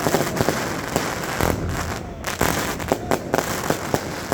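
The 'City of Pyro' 75-shot, 25 mm fireworks compound cake near the end of its finale: shells bursting with dense rapid cracks at first, thinning out to a few separate bangs.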